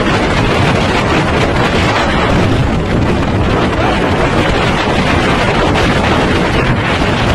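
Tornado-strength wind gusts buffeting a phone microphone: a loud, steady rush of wind noise, heaviest in the low rumble.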